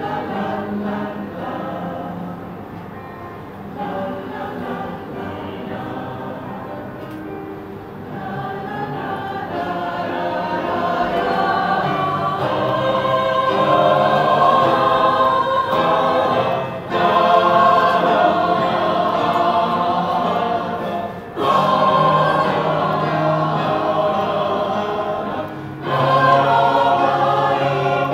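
Mixed choir of men's and women's voices singing, swelling louder after the first third, with three brief pauses between phrases in the second half.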